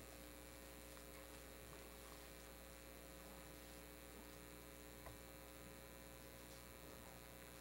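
Near silence with a steady electrical mains hum, and one faint click about five seconds in.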